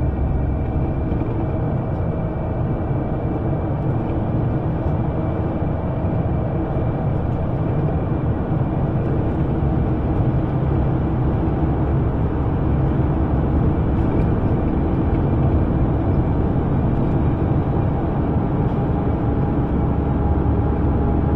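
Underground train running, a steady low rumble with faint steady tones above it.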